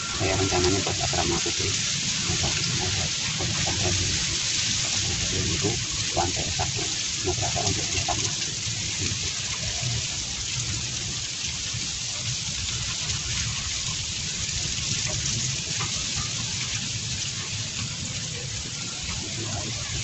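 Steady rushing hiss of running water, even and unbroken.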